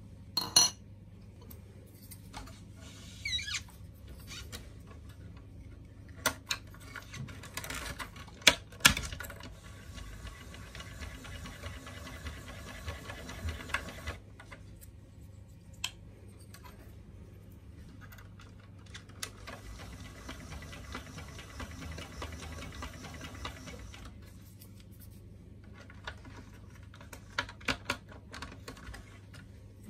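Plastic parts of a CHIBA Peel S katsuramuki peeler being handled while the holder is exchanged: scattered clicks and knocks, two sharp ones about nine seconds in, and stretches of scraping and rubbing as parts slide onto and off the shaft.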